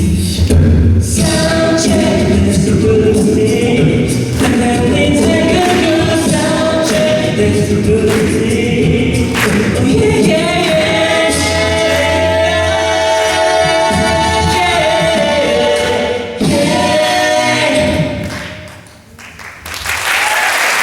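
An a cappella vocal group singing in close harmony over a low sung bass line, with no instruments. The singing drops away briefly near the end.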